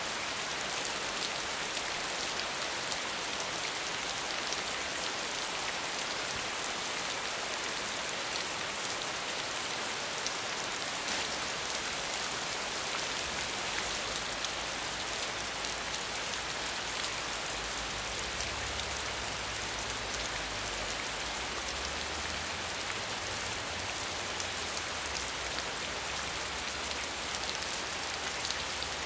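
Steady medium rainfall: a dense, even hiss of rain with fine patter of drops. A faint low rumble joins underneath about halfway through.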